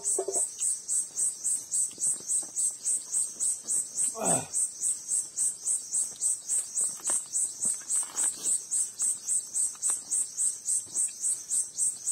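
Insect chirping steadily in high-pitched pulses, about three a second. About four seconds in, a brief low sound slides down in pitch.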